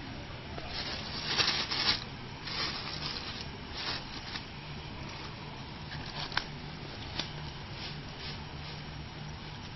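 Polythene bag and banana leaf crinkling and rustling in the hands as a leaf parcel is wrapped and tied. The handling is loudest in a few bursts in the first four seconds, then lighter, with a couple of sharp ticks. A steady low hum runs underneath.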